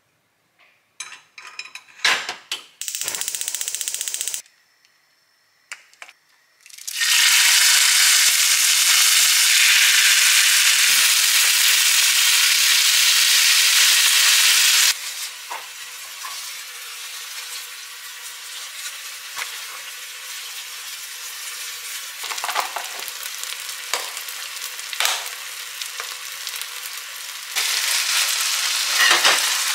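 Thinly sliced beef sizzling in a hot skillet, stirred and scraped with a wooden spatula. A few clicks and a brief hiss come first. A loud sizzle starts about seven seconds in, settles to a lower sizzle with spatula scrapes at about fifteen seconds, and grows louder again near the end.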